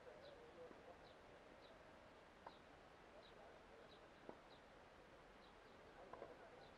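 Near-silent outdoor ambience with a small animal's short, high chirp repeated steadily, less than a second apart, and two faint ticks midway.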